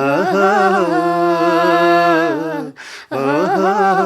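A man singing unaccompanied, holding one long steady note for more than two seconds, pausing briefly for breath, then starting another long note.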